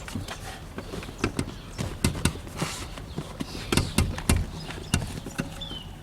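A series of irregular dull thumps and knocks, loudest in a cluster about four seconds in. The rear seat cushion of a 1986 Mercedes 300E (W124) is being kicked and pushed down toward its mounting clips.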